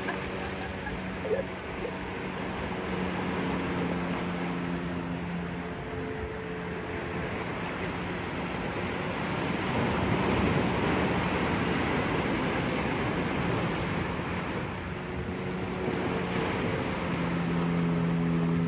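A motor running steadily under a continuous rushing noise of wind or water, its hum holding one pitch throughout.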